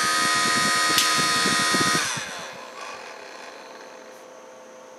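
Tiny RC-helicopter motor spinning a 3D-printed plastic turbine impeller: a steady high whine with a fast rattle from the loose unit vibrating on its base. About two seconds in the power drops and the whine falls in pitch and fades as it spins down.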